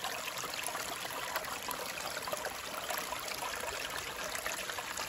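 Stream water running steadily down a small stainless-steel gold sluice box over its blue riffle mat, trickling and splashing. The flow is slow, not fast enough for the sluice to work at its best.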